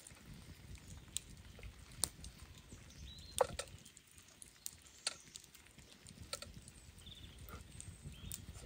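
Spoon clicking and scraping in a metal camping pot while soup is eaten: irregular light taps, a few with a short metallic ring, over a faint low rumble.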